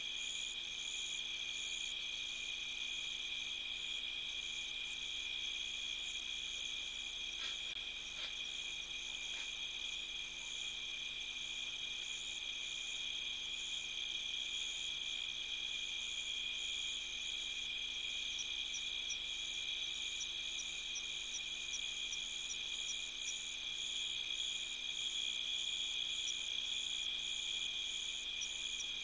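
Night insect chorus: a steady high trilling in two pitches, with a faster, pulsing trill above it.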